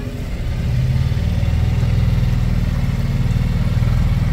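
Motorboat engine running under way, its low hum growing louder about a second in as the boat picks up speed.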